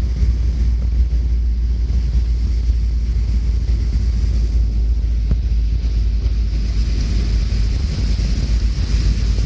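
Wind buffeting the microphone: a loud, steady low rumble with a fainter hiss above it.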